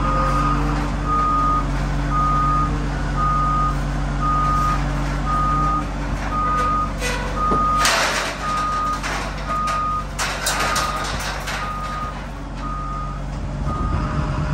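Cat 930H wheel loader's reverse alarm beeping steadily about once a second over its diesel engine running, as the loader backs away with a steel cable reel on its forks. Bursts of clatter come about eight seconds in and again around ten to eleven seconds in.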